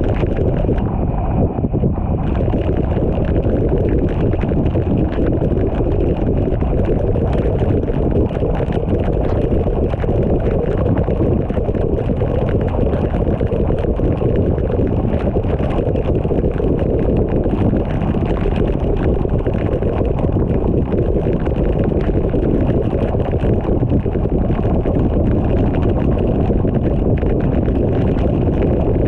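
Steady low rumble of a car driving on a rain-soaked road, with rain pattering on the car's body and windshield, heard from inside the car. The patter drops out for a second or two near the start, while the car passes under an overpass.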